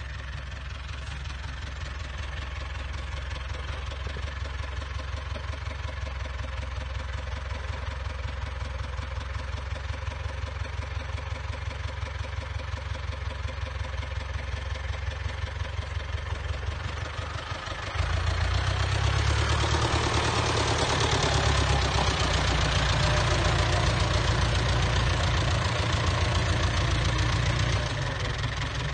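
Diesel engine of an International Harvester 785 tractor running as the tractor drives along a track toward the listener. It grows slowly louder, jumps noticeably louder about two-thirds of the way through as the tractor comes close, then eases off near the end.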